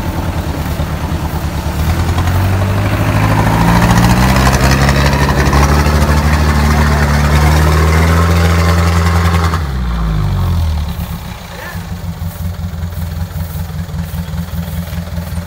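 A Mitsubishi PS 120 truck's diesel engine is revved up over a couple of seconds and held at high revs. About ten seconds in, it drops abruptly back to a rough, throbbing idle.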